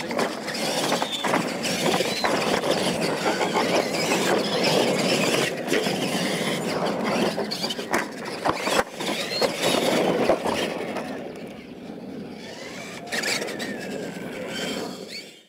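Radio-controlled monster trucks racing over dirt jumps: motors and gears whining as they rev up and down, tyres scrabbling on the dirt, and sharp knocks from the trucks landing. The racing noise is loud for most of the run and grows quieter near the end.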